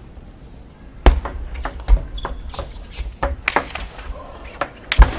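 Table tennis rally: the ball clicks sharply off the bats and the table in quick succession, starting about a second in. Some of the strokes land with a heavier thud, the loudest near the end.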